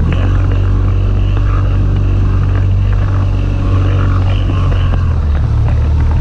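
Outboard motor running steadily, driving a small inflatable boat through choppy sea, with water rushing and splashing against the hull and wind on the microphone.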